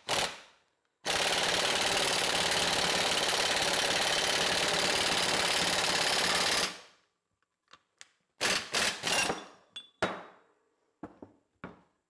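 Air impact wrench hammering steadily for about five and a half seconds, driving a C-frame ball joint press that pushes a ball joint into the steering knuckle. After it stops come several sharp metal clanks and knocks as the steel press is taken off and set down.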